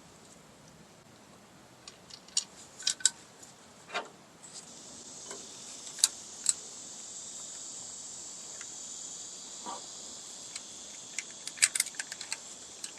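Small steel drum-brake parts clinking and tapping in bursts as they are handled and fitted. A steady high hiss comes in about four and a half seconds in.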